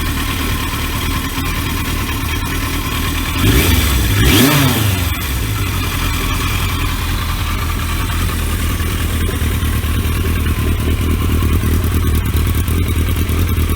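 The 1983 Yamaha XJ650 Seca Turbo's carbureted inline four-cylinder engine idling steadily, with one brief rev about three and a half seconds in before it settles back to idle. It sounds real smooth.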